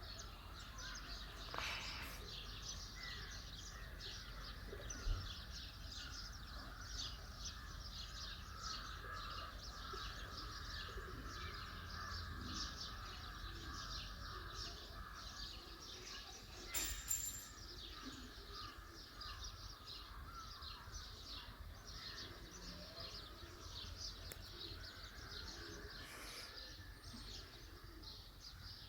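Many small birds chirping and calling at once in a dense, continuous early-morning chorus, over a low steady rumble of outdoor background noise. A brief louder noise cuts across the birdsong about 17 seconds in.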